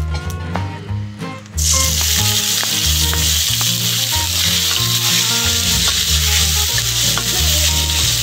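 Chopped tomatoes frying in hot oil in a kadhai, a loud sizzle that starts suddenly about a second and a half in and holds steady as they are stirred with a wooden spatula. Before that, only a faint sizzle of seeds in the oil.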